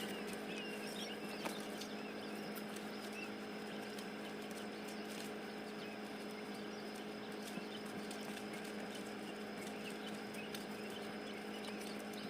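Nine-day-old quail chicks peeping faintly, with a few light clicks, over a steady low hum.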